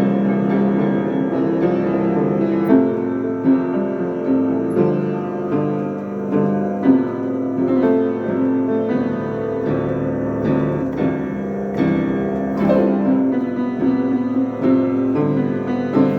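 Piano being played, a continuous run of chords and melody notes.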